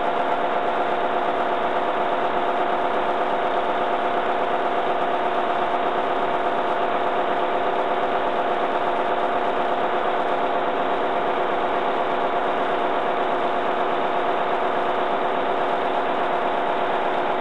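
1951 McLaren 14-litre four-cylinder diesel engine of a 55 kW Brush generator set running steadily at its rated speed of about 1000 rpm.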